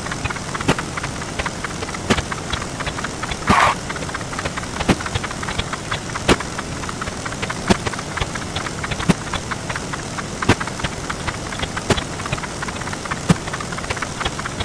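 A dense, crackling jumble of many short counting sound effects sped up until they run together, with a sharper click about every second and a half and a brief brighter burst about three and a half seconds in.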